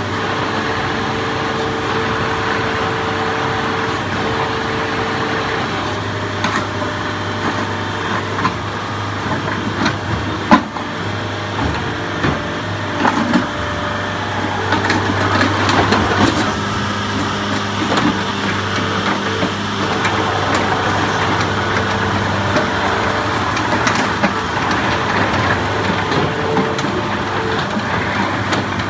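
IHI 45J mini excavator's diesel engine running steadily, then taking on load from about six seconds in as the hydraulics work the boom and swing the machine. Scattered metallic knocks and clanks come from the arm, bucket and tracks, the sharpest a little after ten seconds.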